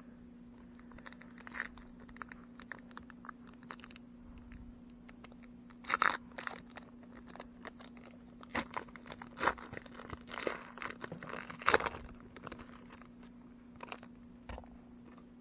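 Plastic wrapper of a Donruss baseball card pack crinkling and tearing as it is ripped open by hand: a run of small crackles, with louder bunches of crackling and ripping through the middle.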